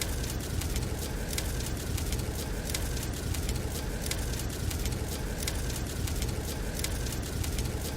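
Wood fire crackling in a fireplace, with frequent irregular sharp pops, over a steady low rumble of snowstorm wind.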